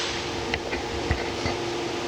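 Sencorp 2500 roll-fed thermoformer running: a steady machine hum with a few short knocks from its moving parts.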